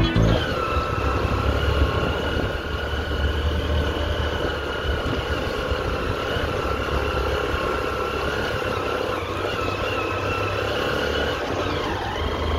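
Motorcycle engine running at a steady low speed over a rough gravel road, with a steady whine over a low rumble of wind on the microphone. The pitch dips briefly near the end.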